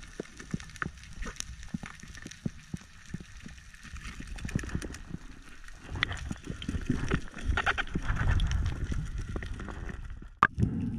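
Underwater sound picked up by a diver's camera: scattered sharp clicks and crackles, and a low rush of moving water that grows louder from about four seconds in as the diver swims toward the speared king mackerel. One loud knock comes near the end.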